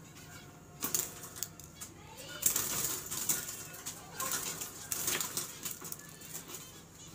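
White Java sparrows in a wire cage: a scatter of short, sharp chirps and clicks mixed with brief wing flutters, busiest from about two and a half seconds in.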